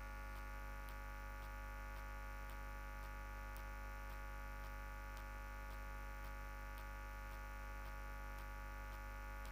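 Steady electrical mains hum with a stack of evenly spaced overtones, with faint ticks over it.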